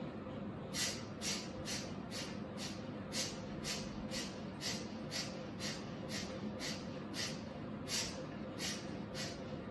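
Kapalbhati pranayama at speed: rapid, forceful exhalations puffed out through the nose, about three sharp bursts a second, starting about a second in.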